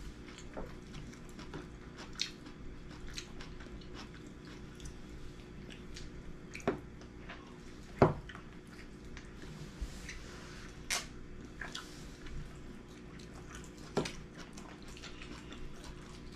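Eating sounds at a meal: a metal spoon and tableware clinking and knocking against bowls, with chewing. Scattered short clicks, the sharpest about eight seconds in, over a faint steady hum.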